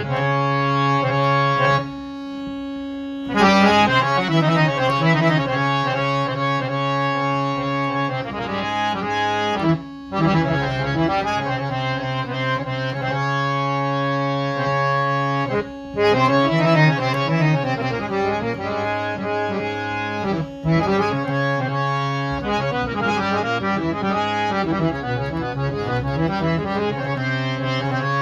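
Hand-pumped harmonium with three sets of Paris reeds (bass, male and female) playing a melody of quick runs over a steady held drone note, with a few brief pauses.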